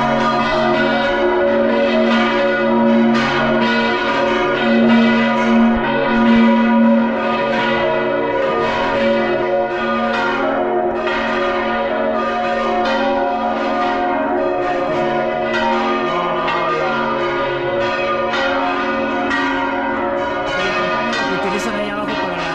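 Large church bells ringing at close range inside the bell tower. Repeated strikes, roughly one a second, renew a dense sustained ringing of many overlapping tones.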